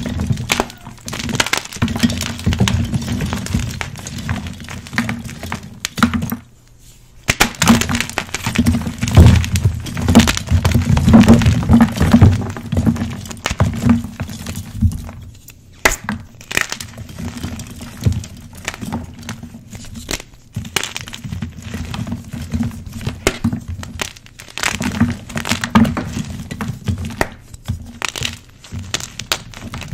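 Fresh NEXO gym chalk blocks being crushed and crumbled by hand: dense crunching and crackling as the blocks break and the powder is squeezed between the fingers. There is a short pause about six and a half seconds in.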